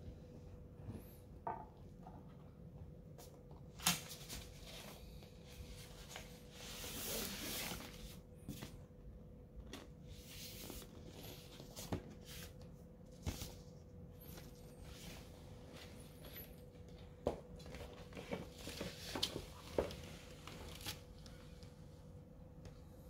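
Vinyl LPs, their paper inner sleeves and the cardboard album jacket being handled: faint rustling with scattered small knocks and clicks, and a longer rustle of paper a few seconds in. A faint steady hum runs underneath.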